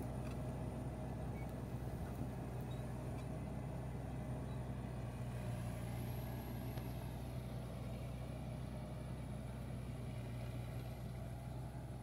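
Crawler bulldozer's diesel engine running steadily as the machine works across muddy ground: a low, even drone with a faint high whine that rises slightly about halfway through.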